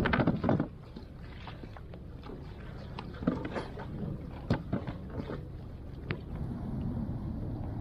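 Steady low wind rumble on the microphone, with a louder burst of handling noise right at the start. Scattered small knocks and clicks follow as an angler in a kayak handles fish, hook and line.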